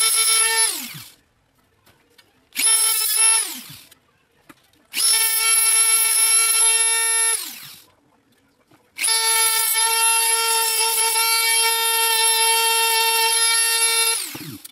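Dremel rotary tool with a small sanding drum, smoothing the edge of a circle cut in sheet metal, run in four bursts: a steady high whine that falls in pitch as the motor spins down each time it is switched off. Two short runs come first, then a longer one, and a last run of about five seconds.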